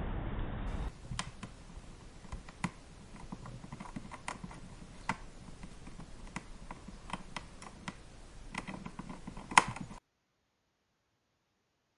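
Irregular light clicks and taps over a faint hiss, about a dozen in all, the loudest one near the end, cutting off suddenly to silence.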